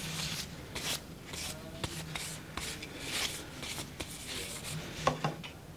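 The oiled wooden handle (tote) of a hand plane being rubbed and buffed by hand, in a run of irregular scrubbing strokes. This buffing of the bare wood burnishes the repair to mimic years of handling.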